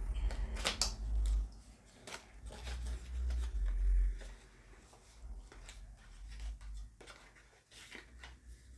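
Cardboard and paper makeup packaging being handled: scattered rustles, taps and clicks, with low bumps in the first few seconds.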